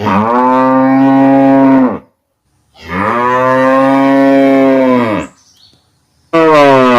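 Cow mooing: two long moos of about two seconds each, steady in pitch, then a third that begins near the end and falls in pitch.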